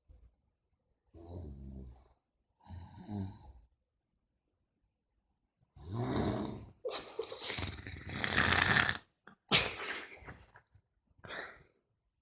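A person snoring: two short, soft snores, then louder and longer snores from about halfway through.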